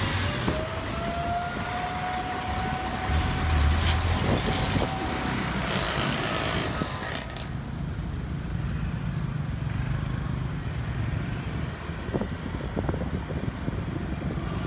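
Road traffic with a bus passing close by: engine and tyre noise with a thin whine over it for the first few seconds. About halfway through, the sound cuts to a quieter low, steady rumble.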